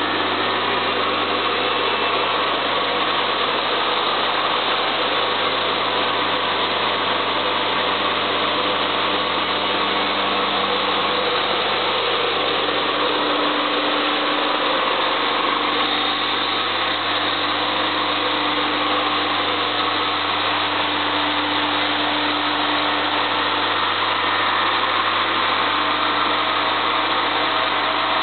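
Electric industrial abrasive vacuum unit running steadily, a constant loud machine noise with a few steady hum tones.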